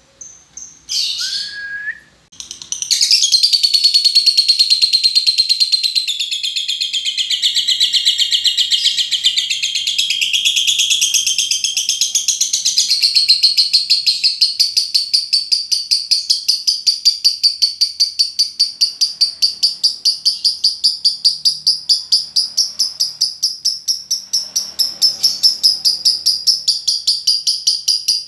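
A lovebird's long 'ngekek' chatter. After a few short high calls, an unbroken high chattering starts about three seconds in and runs on without a break. Past the middle it settles into a fast, even rattle of several notes a second.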